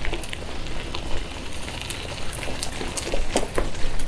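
Bicycle rolling along a dirt and gravel trail: a steady low rumble with scattered sharp clicks and rattles, a few louder ones near the end.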